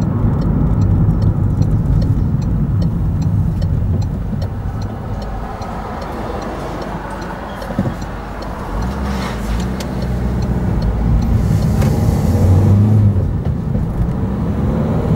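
Car driving, heard from inside the cabin: engine and tyre noise that eases off for a few seconds, then an engine note that rises as the car pulls away and accelerates from about nine seconds in. A light regular ticking is heard during the first few seconds.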